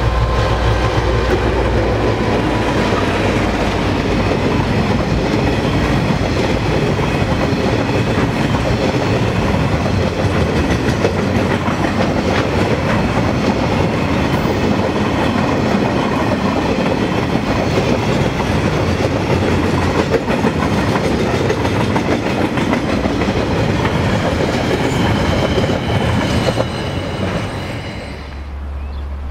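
Freight train passing close by, led by a KiwiRail DC-class diesel-electric locomotive, followed by a long run of wagons with wheels clattering over the rail joints. The noise falls away near the end as the last wagon goes by.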